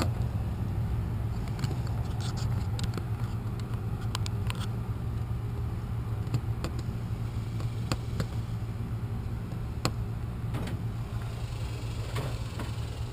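Scattered light clicks and taps of hand work, such as a GFCI outlet being screwed back into its box, over a steady low hum.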